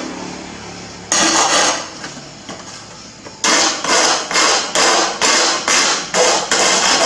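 Abrasive stone rasping along the edge of a cut glass sheet to smooth it. One stroke comes about a second in, then from about halfway a quick, regular back-and-forth of about three strokes a second.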